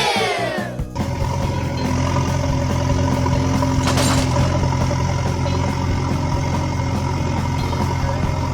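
A heavy vehicle's engine idles steadily with a low, even rumble. A falling whistle-like sound fades out just at the start, and a brief click comes about four seconds in.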